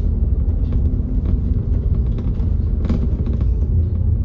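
Double-decker bus heard from its upper deck while driving: a steady, low engine and road rumble, with light rattles and one sharper knock about three seconds in.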